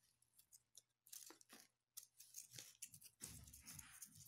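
Faint handling sounds: small clicks and rustles as fingers turn a handmade wooden-stick molecular model against paper, a few about a second in and more in the second half.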